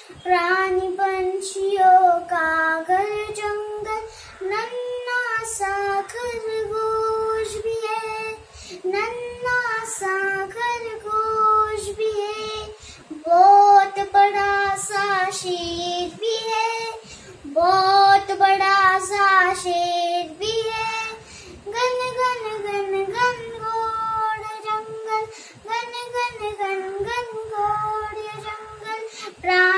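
A young girl singing a Hindi children's song, one solo voice.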